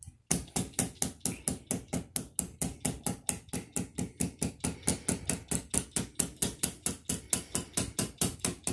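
Rapid, even hammer taps on a metal rod, about five a second, driving a slug down the bore of a CZ 527 7.62x39 rifle barrel: slugging the barrel to measure its groove diameter.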